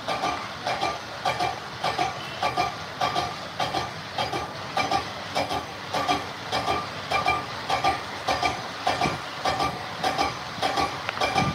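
Lathe machinery running with a regular metallic clatter, about two to three knocks a second, each knock with a short ringing tone.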